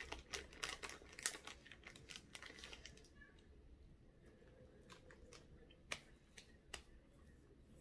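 Faint crinkles and clicks of snack packaging being handled, many in the first three seconds and then only a few, with two sharper clicks near the end.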